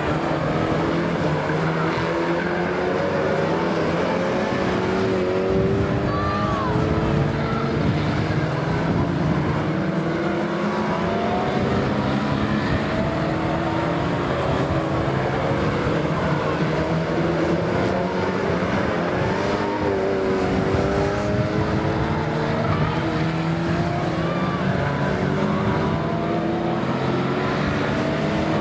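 A pack of Lightning Rods saloon race cars running flat out around a short oval, several engines revving at once. Their pitch rises and falls continuously as the cars accelerate through the bends and pass by.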